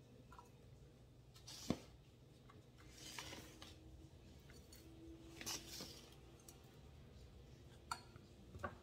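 Quiet kitchen prep sounds: sharp clicks against a glass mixing bowl, the loudest about two seconds in and two smaller ones near the end, with soft rustles between as sliced red chilies and dried chili flakes are dropped onto minced chicken.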